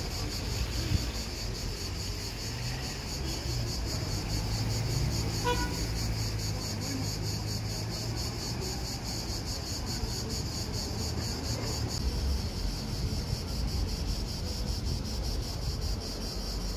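Cicadas buzzing in a steady, high, rapidly pulsing drone, with the low hum of an engine underneath for most of it. A short beep sounds about five and a half seconds in.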